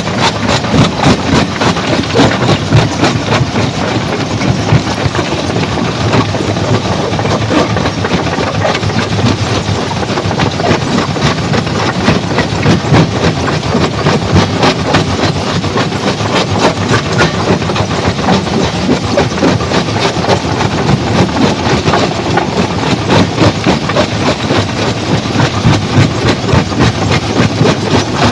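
Stone crusher running and breaking rock: a loud, steady, rapid clatter of repeated knocks over the heavy machinery's running noise.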